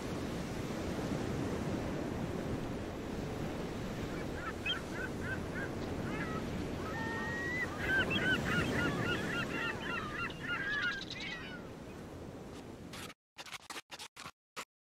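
Surf washing on a beach, with a flurry of short, quickly repeated bird calls from about four seconds in until about twelve seconds. The sound cuts out about thirteen seconds in, leaving a few faint clicks.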